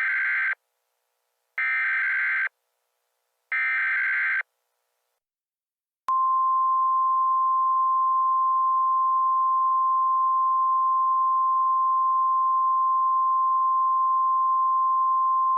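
Emergency Alert System SAME header: three short bursts of buzzy digital data tones, about two seconds apart. After a short gap, about six seconds in, the single-tone EAS attention signal starts: one steady, loud tone just above 1 kHz, held for about ten seconds.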